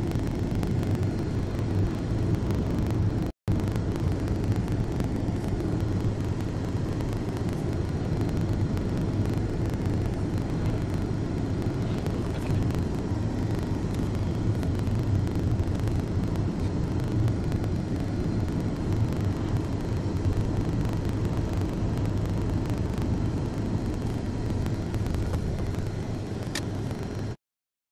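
A car driving at speed: a steady, low rumble of engine and road noise. It breaks off for an instant a few seconds in, then stops abruptly near the end.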